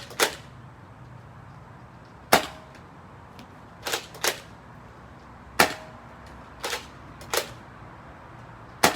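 A Nerf Rival blaster firing foam balls one shot at a time. About eight sharp pops come at irregular gaps of roughly a second, a few of them in quick pairs.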